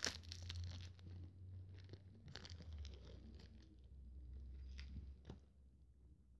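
Wrapper of a Warheads sour cherry sucker crinkling and tearing as it is pulled off by hand: a few faint crackles over the first five seconds, the sharpest right at the start.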